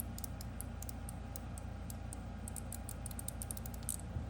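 Haptic fidget slider being slid back and forth by hand, its plates snapping into their stops with light, high-pitched clicks at an uneven pace, several a second.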